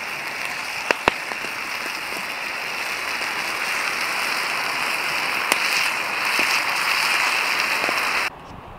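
Pot of mashed potatoes and green beans boiling down their water and sizzling: a steady hiss with a few sharp pops, cutting off suddenly near the end.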